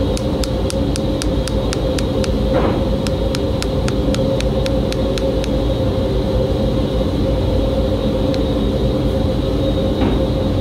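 Light, quick hammer taps, about four a second, on the steel hoop and end grain of a Japanese bench chisel's wooden handle, setting the hoop. The taps stop about halfway through, with a couple of stray taps later and a duller knock a quarter of the way in and near the end. A loud steady machine hum with a constant tone runs underneath.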